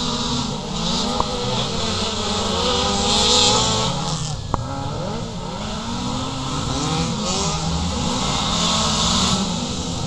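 Several race car engines revving hard on a dirt track, their overlapping notes rising and falling in pitch as the cars accelerate and back off through the bends. Two short sharp clicks sound about a second in and again after about four and a half seconds.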